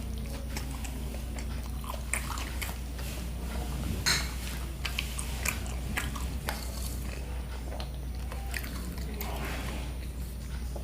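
A person eating close to the microphone: irregular bites and chewing with crisp crackles and wet mouth clicks, one sharper bite about four seconds in.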